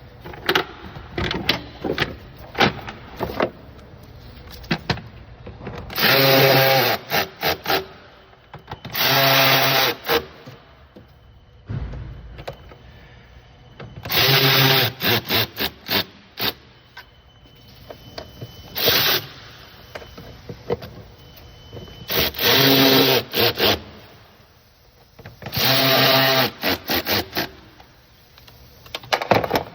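A cordless power tool running in six short bursts of about a second each at a steady pitch, driving fasteners back in, with clicks and knocks of plastic parts being handled in between.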